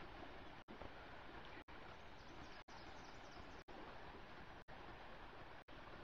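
Faint steady rush of river water running over a shallow riffle. The sound drops out briefly about once a second.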